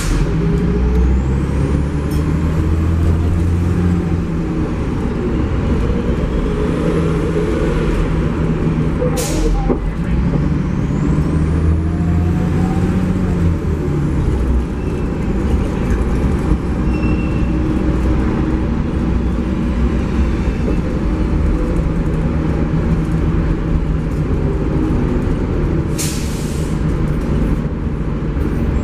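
Cummins C Gas Plus 8.3-litre natural-gas engine of a Neoplan AN440LF transit bus, heard from inside the cabin, running under load with its tone rising and dropping as the Allison five-speed automatic shifts. Two short, sharp air brake hisses cut through, one about nine seconds in and a longer one near the end.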